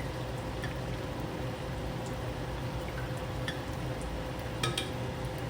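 An egg frying in hot oil in a pan, sizzling steadily with a few small pops.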